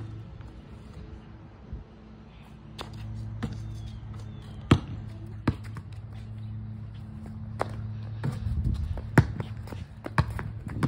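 Basketball bouncing on a concrete driveway: single hard bounces, mostly a second or more apart, with a few quicker ones near the end. A steady low hum runs underneath.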